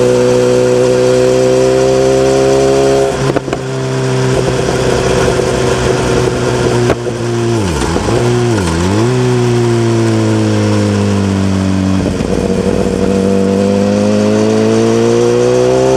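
Motorcycle engine heard from on board the moving bike, running at a steady cruising pitch with a brief break about three seconds in and two quick dips in revs near the middle. The engine note then eases down and climbs again over the last few seconds as the bike accelerates.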